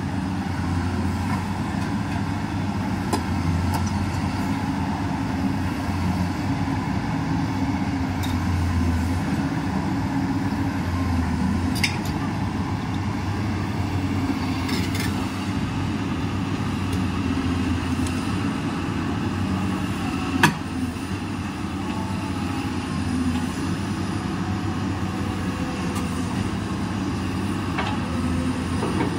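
Komatsu PC200 hydraulic excavator's six-cylinder diesel engine running steadily as the machine moves on its steel tracks, with scattered metallic clanks and one sharp, loud knock about two-thirds of the way through.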